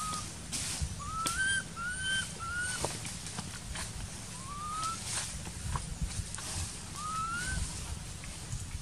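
Baby macaque crying: about five short, high, whistle-like coos, each gliding upward in pitch, some coming in quick pairs, over soft low rustling.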